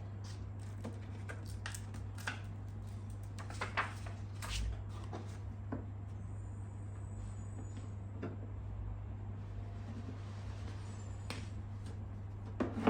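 Occasional light knocks and clicks from a plastic motorcycle belly-pan fairing being handled while a decal is pressed down, over a steady low hum.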